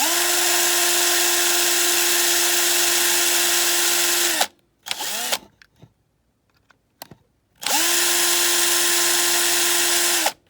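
Electric drill with a small 1.5 mm bit drilling out the rivets of a diecast toy car's base, running at a steady speed. It runs for about four and a half seconds, blips briefly, then runs again for nearly three seconds, winding down each time it stops.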